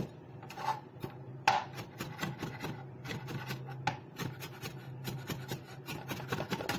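Cleaver chopping rapidly on a plastic cutting board, several strokes a second, mincing raw anchovies.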